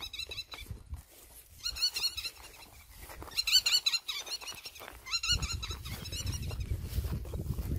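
Animal calls: clusters of short, high-pitched chirps repeated in quick runs, several times over. A low rumble comes in about five seconds in.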